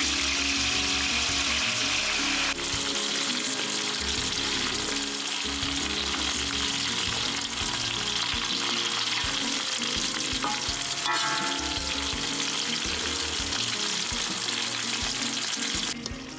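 Whole tarantulas deep-frying in a wok of hot oil: a steady, dense sizzle.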